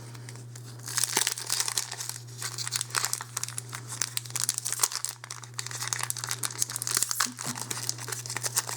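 Foil wrapper of a Magic: The Gathering booster pack crinkling and tearing as it is pulled open, starting about a second in, over a steady low hum.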